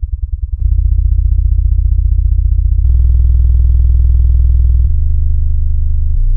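Bowers & Wilkins ASW608 8-inch long-throw subwoofer driver, paper/aramid cone, running in free air on very low test tones that step up in pitch about four times, from around 10–20 Hz to 25 Hz and above. Each tone comes out as a loud, buzzy low hum with many overtones, the cone making large excursions.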